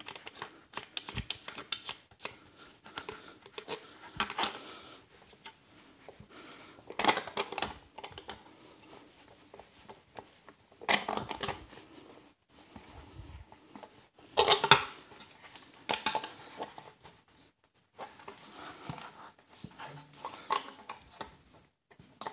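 T-handle socket wrench clicking and clinking on a nylon-insert locknut as it is wound down a threaded steel shaft, in short bursts of metal clatter every few seconds. The locknut turns stiffly, so it has to be worked on with the wrench stroke by stroke.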